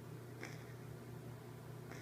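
A pet wheezing: two short, raspy breaths, one about half a second in and another near the end, over a steady low hum.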